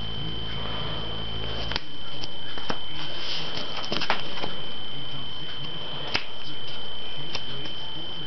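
Handling noise from a handheld camera and sleeved trading cards: scattered clicks and knocks over a steady high-pitched whine. A low hum cuts off about two seconds in.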